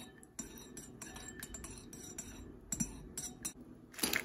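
Metal spoon clinking against the side of a ceramic bowl as it stirs a liquid mixture: a run of light, uneven clinks, with a louder knock near the end.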